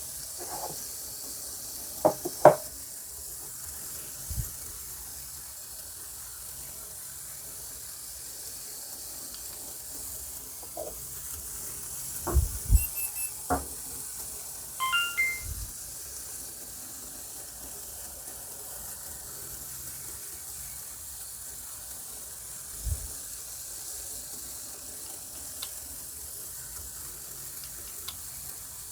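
Tiny T-gauge model train running on its track: a steady faint hiss, broken by a few short clicks and knocks and a brief chirp about halfway through.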